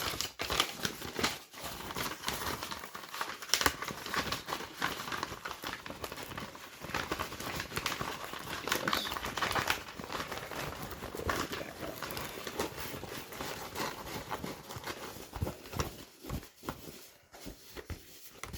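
Crinkling and rustling of a paint-by-numbers kit's packaging and contents as they are handled: a steady run of small crackles and rustles.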